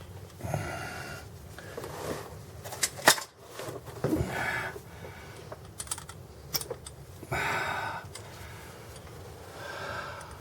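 Sharp metal clicks and scraping as a tight-fitting pin is wiggled and worked into place in a Jeep's clutch linkage.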